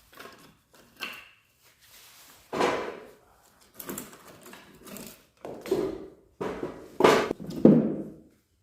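Axe splitting firewood: a series of hard wooden thuds and knocks, the loudest about two and a half seconds in and two close together near the end.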